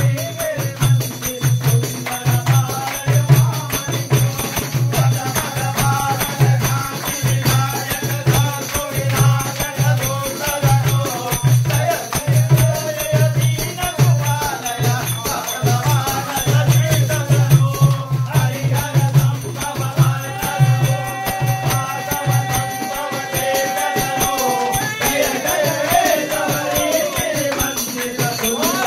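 Group of men singing a Swami Ayyappa devotional bhajan into a microphone, accompanied by tambourine jingles and a steady drum beat; the drum drops out about three-quarters of the way through while the singing and jingles carry on.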